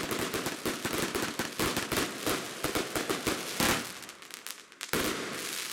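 Vuurwerkmania 'Color Explosions' compound fireworks cake firing: rapid crackling bangs of shots and star bursts, ending in a loud bang just under four seconds in. A final burst of noise follows about five seconds in.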